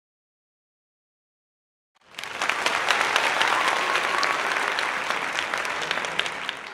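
Applause: a crowd clapping that starts suddenly about two seconds in after silence, holds steady, and fades out near the end.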